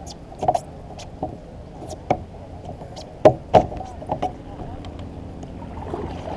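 Paddling a plastic fishing kayak: a string of short, sharp knocks and clicks from the paddle and hull, loudest a little past three seconds in, over a steady low background.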